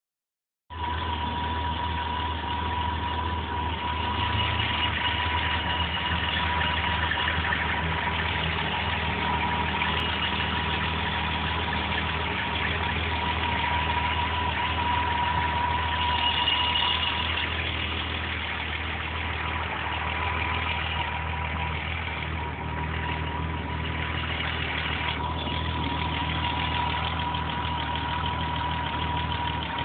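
BMW E30 325is 2.5-litre M20 inline-six idling roughly, with a steady whine over it. The owner blames the rough running on a corroded spark plug wire, since new spark plugs did not cure it.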